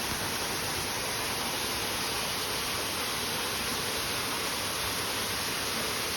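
Waterfall: water falling and splashing, a steady, even rushing noise.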